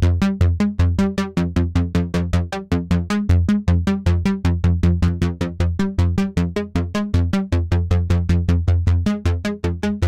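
KORG miniKORG 700S software synthesizer playing a bass preset: a fast, evenly spaced run of short bass notes, about seven a second.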